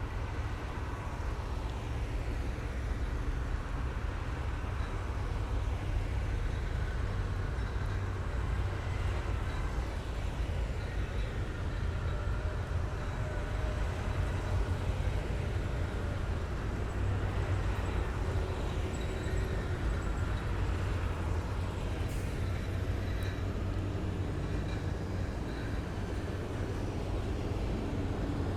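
Heavy military vehicles driving past in a column: a steady deep engine rumble that swells and eases a little as they go by.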